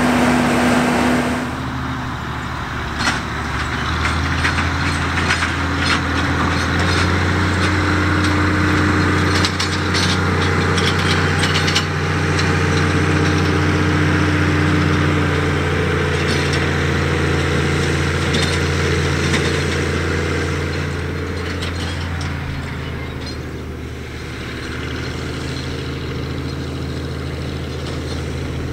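Oliver farm tractor's engine running steadily under load while pulling a forage wagon across the field, with scattered clanks and rattles. The sound eases a little near the end as it moves off.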